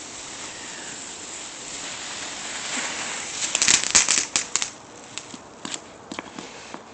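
Small ground fireworks hissing steadily, then breaking into a quick run of crackling pops about three and a half seconds in. Fewer, scattered pops follow.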